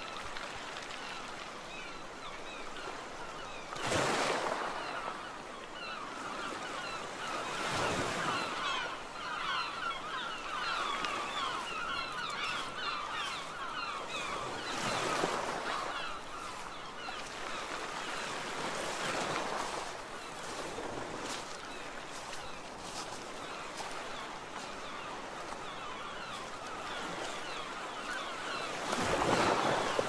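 Sea waves surging and washing onto the shore every few seconds, the loudest swell near the end, with gulls calling in many short, overlapping cries throughout.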